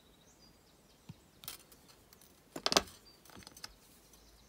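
A few light clicks of flush cutters snipping the tail of a fine copper weaving wire, then a short, louder clatter about two and a half seconds in, with faint ticks after.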